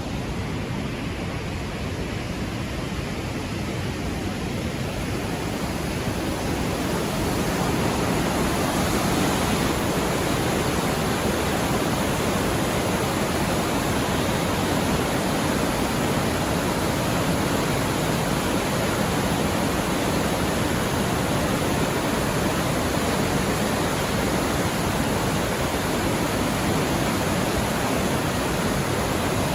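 Dawson Falls on the Murtle River, a wide waterfall heard close up as a steady rushing roar of falling water. It grows louder over the first several seconds, then holds steady.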